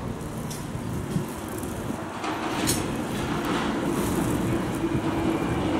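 London Underground 1996-stock tube train approaching the platform, growing steadily louder, with a steady hum coming in about two seconds in and a few sharp clicks of the wheels over the track.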